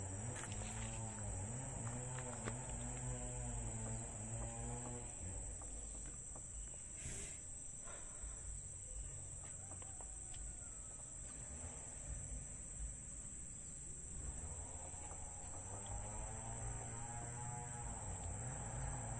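Insects droning steadily at a high pitch. A low pitched call rises and falls, repeating about once a second, in the first five seconds and again from about fourteen seconds in.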